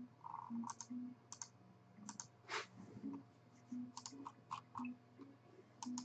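Computer keyboard and mouse clicks: a dozen or so light, irregular clicks at low level.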